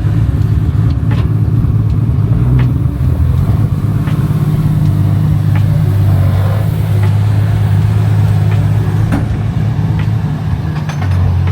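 Car engine running steadily with a low, even hum, and a few light clicks.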